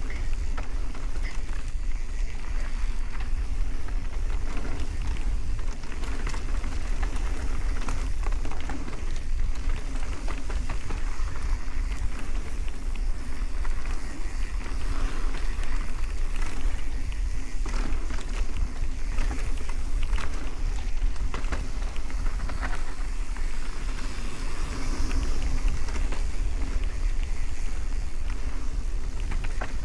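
Mountain bike riding down a dirt trail: a steady low rush of wind on the microphone, with tyre noise on the dirt and frequent small rattles and clicks from the bike.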